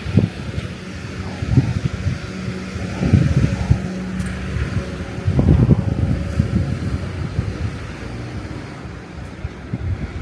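Wind buffeting the microphone in irregular low gusts, with a faint steady low hum beneath.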